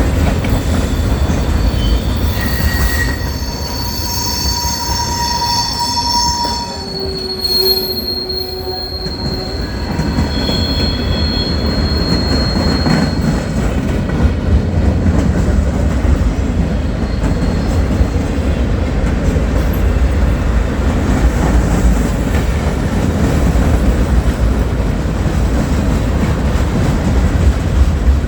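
A train running on rails with a steady low rumble. From about two seconds in, the wheels squeal in several high, steady tones for about ten seconds before fading, leaving the rumble.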